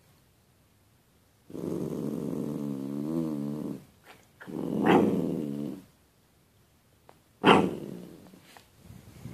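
Small long-haired dog making three drawn-out grumbling growls while being petted: a long wavering one, a louder one, then one that starts sharply and fades. The dog is vocalising to demand more petting.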